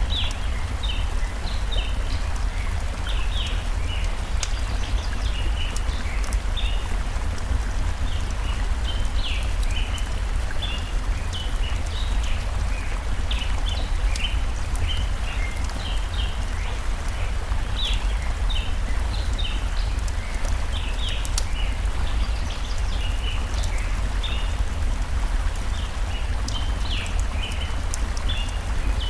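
Layered nature ambience: a campfire crackling with scattered sharp pops over the steady rush of a stream, while small birds chirp in short, quick notes throughout.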